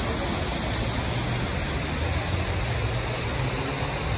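Steady rushing of a large artificial rock waterfall pouring into a pool, with a low hum that grows stronger near the end.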